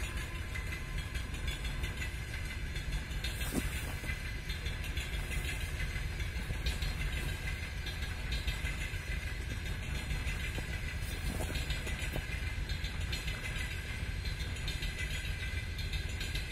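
Passenger train coaches rolling past at a distance on departure: a steady low rumble of wheels on rail.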